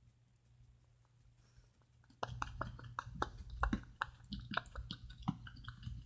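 Hands working Play-Doh at a table: after about two seconds of near quiet, a run of irregular soft taps and clicks.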